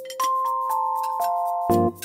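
Light background music: a few held notes come in one after another, each lower than the last, and ring on together. Near the end a fuller chord with bass comes in.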